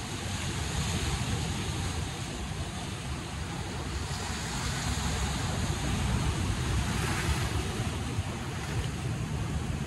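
Sea surf washing and breaking against a rocky shore, swelling a few times, with wind buffeting the microphone underneath.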